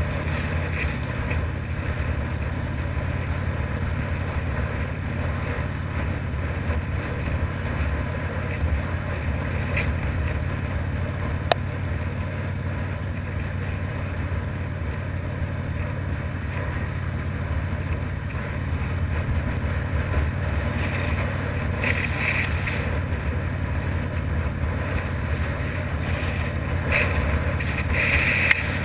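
Harley-Davidson V-twin motorcycle engine running at a steady cruising pace, with wind noise on the microphone. A single sharp click comes about eleven seconds in, and two short hissy surges come near the end.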